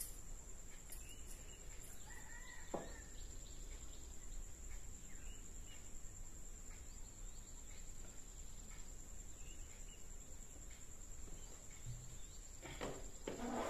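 Faint room tone with a steady high-pitched whine. A short faint chirp comes about two seconds in, followed by a light knock.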